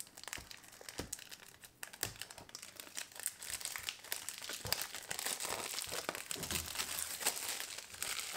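Cellophane shrink-wrap on a plastic CD jewel case crinkling and crackling as it is slit with an X-Acto knife and pulled loose. The crackling gets denser about halfway through.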